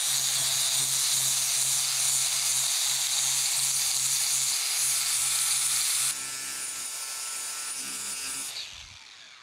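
Electric angle grinder with a flap disc grinding a rusty metal belt-grinder platen, knocking down high spots raised by rust. It grinds steadily, gets quieter about six seconds in, then the motor is switched off and winds down near the end.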